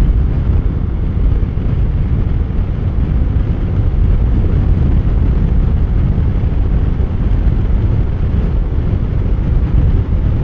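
Steady wind rush and road noise from riding a Yamaha scooter at about 45 mph, picked up by a lavalier mic tucked inside the helmet. It is a heavy low rumble with no clear engine note.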